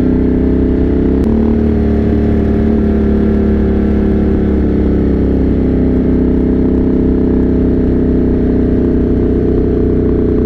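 Motorcycle engine running steadily on the move, its pitch stepping once about a second in, over a continuous low rumble.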